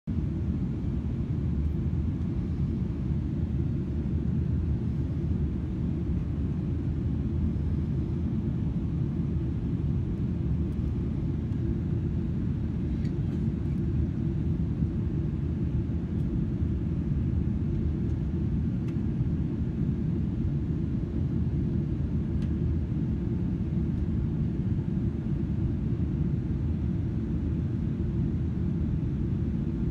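Steady low rumble inside the passenger cabin of a Boeing 777-300ER in flight: its GE90 engines and the airflow over the fuselage.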